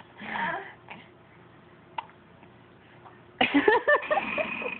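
A short vocal sound just after the start and a faint click about two seconds in, then a person's voice talking for just over a second near the end.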